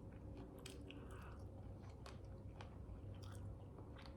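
Faint close-up chewing of food, soft scattered clicks and mouth sounds, over a faint steady hum.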